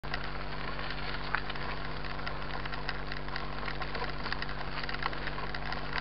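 29-inch mountain bike tyres rolling over a gravel dirt road: a steady crunching noise dotted with many small crackles and clicks of loose stones.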